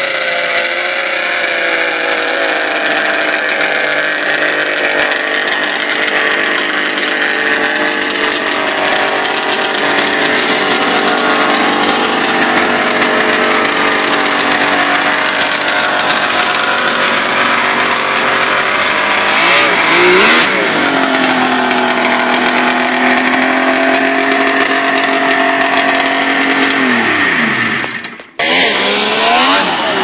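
Engine of a vintage three-cylinder Ski-Doo Blizzard snowmobile running steadily. It is revved briefly about two-thirds of the way in, then settles to an idle. Near the end the revs sag and the sound dies away before engine noise abruptly returns.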